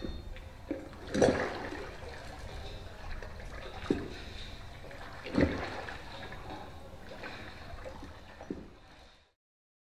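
Canal water lapping and splashing against a small boat gliding along, over a steady watery wash, with four louder slaps, the first the loudest; the sound fades out just before the end.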